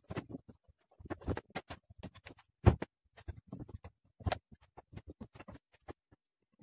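Books and papers being picked up, shuffled and set down on a wooden desk: an irregular run of knocks, taps and rustles, with the loudest thud about two and a half seconds in and another a little after four seconds.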